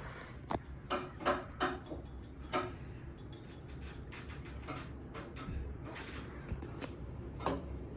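Quorum Pinwheel ceiling fan running up to high speed with a low hum, while irregular sharp clicks and knocks come from the wobbly fan shaking its stand.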